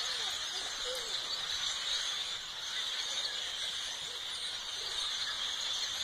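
A large flock of dark birds massed in the treetops, all calling at once in a dense, steady, high-pitched din of overlapping calls.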